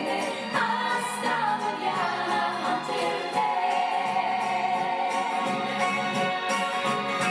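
A recorded song with a sung melody over instrumental backing, playing steadily from a compact stereo system.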